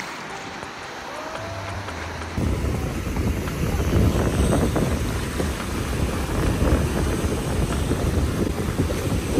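Wind buffeting the microphone over waves breaking in the shallows, cutting in abruptly and loud a couple of seconds in; before that, quieter surf.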